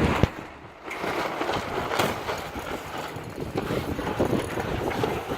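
Wind and water noise aboard a sailing yacht under way, with irregular knocks and rattles from the boat and its gear; one sharper knock about two seconds in.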